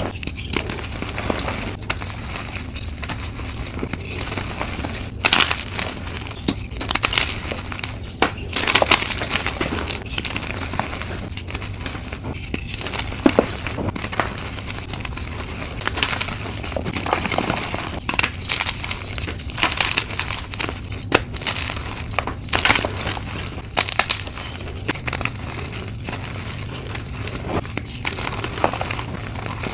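Blocks of dyed chalk crushed and crumbled in the hands: a dense, irregular run of crisp crunches and crackles as the chalk breaks apart into powder.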